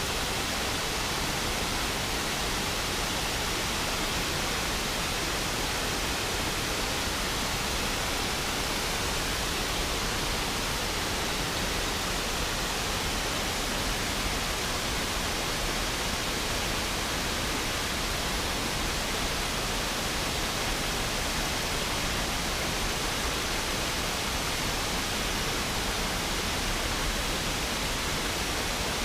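River waterfall: water pouring over the falls in a steady, even rush of noise that does not change.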